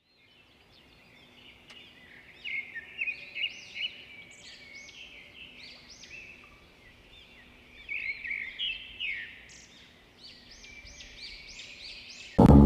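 Birds chirping, many short rising-and-falling chirps in clusters, over a faint steady hum. Near the end a loud low rumble cuts in suddenly: the start of a cartoon stomach-growl sound effect.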